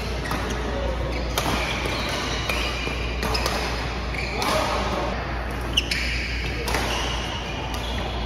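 Badminton doubles rally: several sharp racket strikes on the shuttlecock, roughly a second or more apart, with short squeaks of shoes on the court floor.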